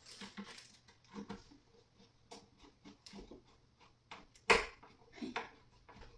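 Scattered light clicks and knocks of flat-pack furniture parts and screws being handled during assembly, with one sharp knock about four and a half seconds in.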